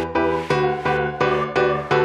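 Background electronic music with a steady beat of pulsing keyboard chords, about four a second.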